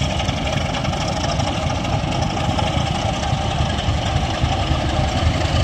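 Diesel locomotive engine running steadily at idle, a low even rumble.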